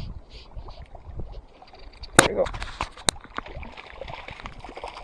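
Hooked brook trout splashing at the lake surface close to the rocky shore, over wind and lapping water. Two sharp clicks about two and three seconds in are the loudest sounds.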